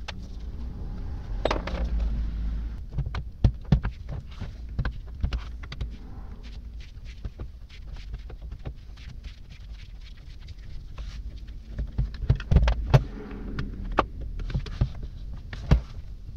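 Steel rod prying and scraping at a vise's serrated steel jaw plate, making irregular sharp metal clicks and knocks, with a cluster of louder knocks late on.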